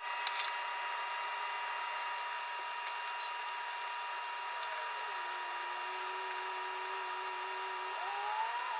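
Light clicks and ticks of a small screwdriver backing small screws out of a MacBook Air's aluminium bottom case, over a steady electrical hum with a whine that slides up in pitch near the end.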